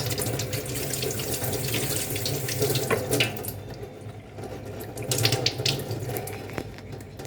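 Water running from a kitchen tap into a sink while hands are rinsed under it, with uneven splashing. The water sound thins about halfway through, then the splashing picks up again briefly.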